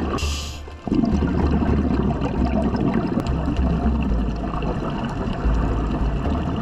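Underwater breathing through a scuba regulator: a short inhaling hiss near the start, then, after a brief dip, a steady rumbling, gurgling stream of exhaled bubbles.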